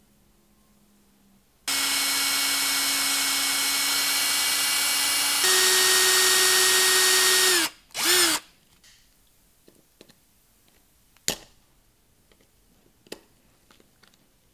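Small electric drill boring out the rivet that holds a diecast toy car's baseplate: a steady motor whine that steps up in pitch partway through, stops, then gives one short burst. Afterwards come a few light clicks and taps of metal parts being handled.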